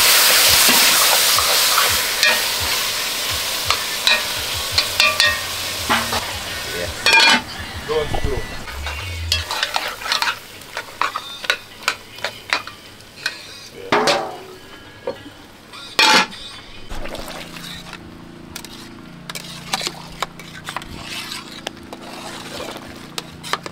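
Stew sizzling in an aluminium pot on a gas stove while it is stirred with a metal ladle, the ladle knocking against the pot now and then. The sizzle is loudest in the first few seconds, then dies down.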